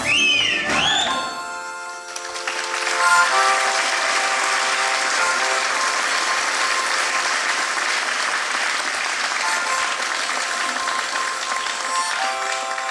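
Audience applauding steadily for about ten seconds after a folk dance, opening with a high, gliding shout as the dance ends; a few quiet instrumental notes carry on under the clapping and the music picks up again near the end.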